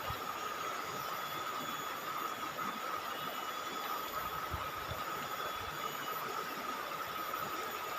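Rocky river flowing steadily: an even rush of water over stones.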